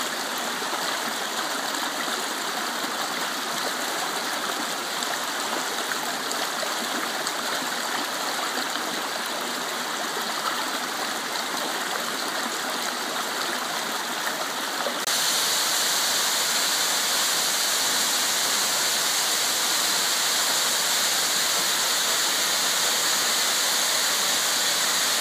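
Shallow stream rushing steadily over rocks. About fifteen seconds in it switches abruptly to the louder, hissier rush of a waterfall falling into a pool.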